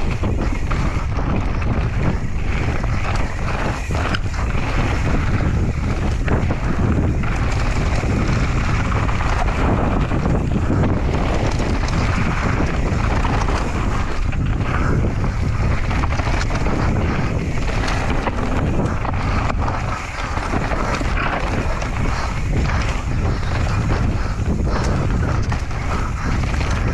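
Mountain bike ridden fast down a dirt trail: steady wind noise on the microphone over the rush of the tyres, with frequent knocks and clatter from the bike over rough ground.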